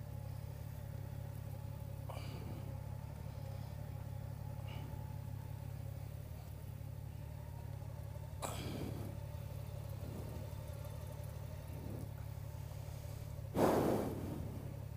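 A motorcycle engine running steadily at idle, with a short burst of noise about halfway through and a louder one near the end.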